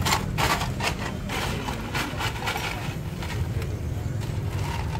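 Popcorn being scooped with a thin plastic bag from a plastic tray: a quick run of rustling, crinkling scrapes as the bag pushes through the popped kernels, thinning out after about three seconds. A steady low hum runs underneath.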